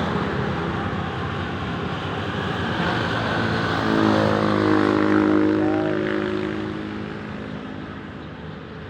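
Road traffic noise, with a bus engine passing close by: its steady hum swells about four seconds in, then fades away over the last couple of seconds.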